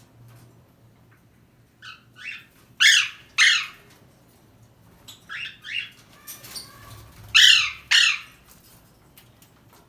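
Pet parrot squawking: loud, harsh calls that fall in pitch, coming in two pairs, each pair led by two shorter, softer calls.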